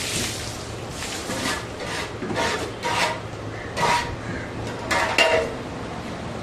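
Water splashing onto a skinned beef carcass on a concrete floor. This is followed by a run of sharp metal clinks and scrapes, some with a short ring, the loudest about four and five seconds in.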